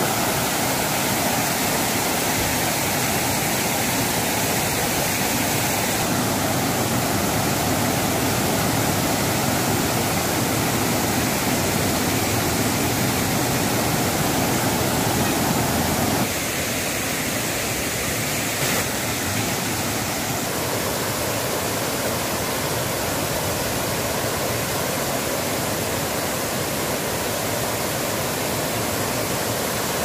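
Overflowing lake water pouring and rushing in a steady roar. About halfway through the sound becomes a little softer and thinner.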